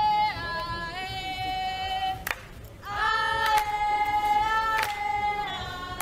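A group of voices chanting together in unison on long held notes, each phrase sliding down at its end, with a short break a little over two seconds in.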